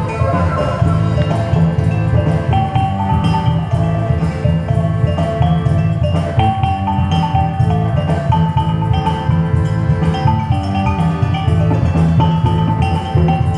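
Live band music led by a kulintang, a row of small tuned pot gongs struck with beaters, playing a stepping melody of ringing notes over bass and regular drum beats.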